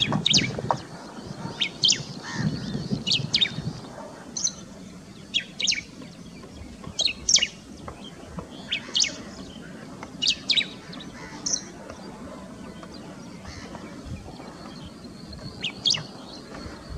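Male bristled grassbird giving its breeding-season calls: short, sharp high notes, singly and in pairs, every second or so.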